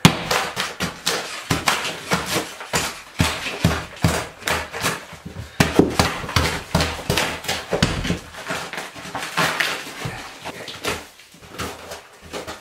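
Hammer and pry bar chipping out a water-swollen chipboard floor that breaks away in little tiny chunks. It is an irregular run of knocks, cracks and scrapes that eases off near the end.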